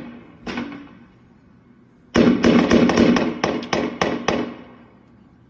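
Gunshots: a single shot about half a second in, then a rapid volley of about a dozen shots over roughly two seconds, several a second, each with a short echo.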